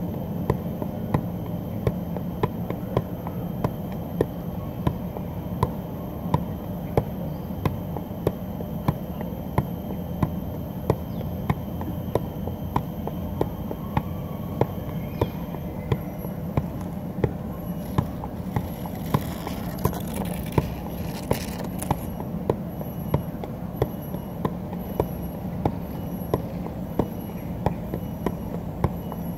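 Soccer ball being juggled with the feet, each touch a sharp knock in a steady rhythm of about three touches every two seconds. A constant low hum runs underneath.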